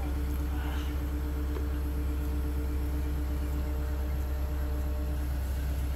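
Diesel engine of a Tadano ATF 100G-4 all-terrain crane running steadily, a constant low drone with a steady hum on top, while it holds a suspended load.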